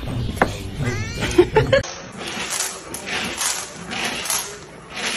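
A few short pitched cries in the first two seconds. Then, after a cut, dry kibble rattling and crunching in a plastic bowl as a pet eats from it, in uneven surges.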